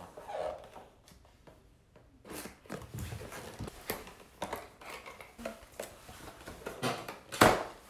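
Cardboard toy box being cut open with scissors and handled: scattered rustles and clicks, with one sharper knock near the end.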